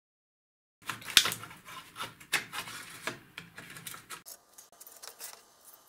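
Clicks, knocks and rubbing as a large circuit board of a Bendix 18804-1A compass coupler is handled and turned over against its metal chassis, beginning after a moment of silence with the sharpest knock about a second in.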